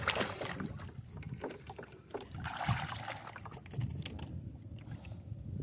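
Water sloshing and splashing around people wading chest-deep while hauling a fishing net, with a steady low wind rumble on the microphone and a louder splash about two and a half seconds in.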